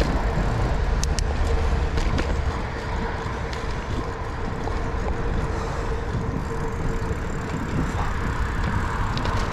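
Bicycle riding along a paved trail: wind rushing over the handlebar-mounted camera's microphone and the rumble of the tyres, with a few small clicks from the bike in the first seconds. A faint steady hum runs under it and stops near the end.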